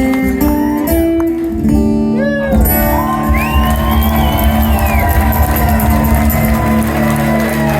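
Live guitar music played without singing, sustained notes over a steady low end.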